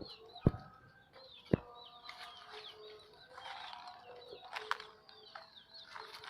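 Small birds chirping with many short, quick calls over low hen clucking. Two sharp knocks stand out in the first two seconds.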